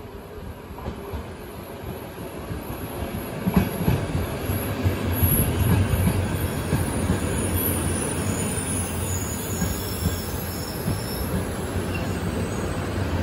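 A Czech Railways passenger train with class 362 electric locomotive 362-017-6 pulls into the station, its coaches rolling past close by with a heavy rumble. The noise builds to its loudest about four to six seconds in. There is a sharp knock about three and a half seconds in, and a high wheel squeal through the middle as it slows.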